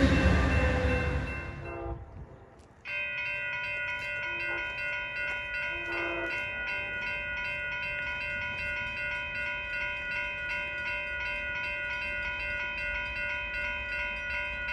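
The noise of a passing train fades out over the first two seconds. Then, about three seconds in, a railroad grade crossing's warning bell starts ringing steadily, a set of bell-like tones with a fine repeating pulse.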